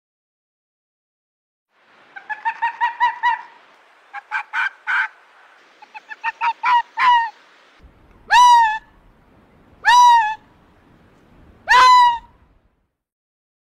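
A series of pitched animal calls: quick runs of short calls, then three longer calls about a second and a half apart, each sweeping sharply up in pitch and easing back down.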